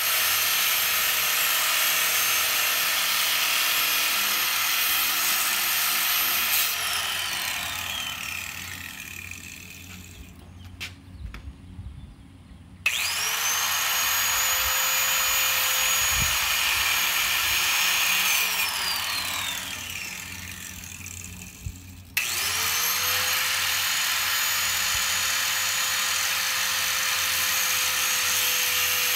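Angle grinder notching a sheet of cement board (Hardie board): the motor runs with a steady high whine and a grinding hiss, then spins down about seven seconds in. It starts again about thirteen seconds in, winds down around nineteen seconds, and starts a third time a few seconds later.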